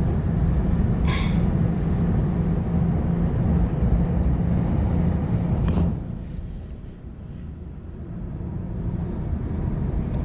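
Steady low rumble of wind and surf at the water's edge, dropping off sharply about six seconds in and slowly building again.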